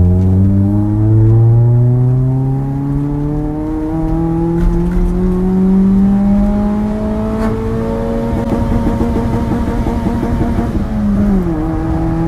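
Honda B16A DOHC VTEC four-cylinder heard from inside the car under acceleration, its pitch climbing steadily as the revs rise. The revs then hold high and drop away about a second before the end as the throttle is lifted.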